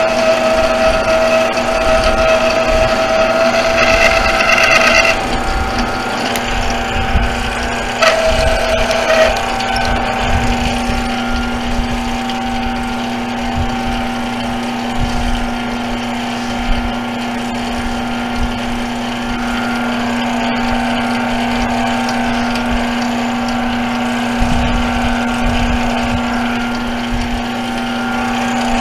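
Metal lathe running, spinning a brake rotor hub, a steady machine hum with several held tones. About five seconds in the higher tones drop away and a lower steady hum carries on.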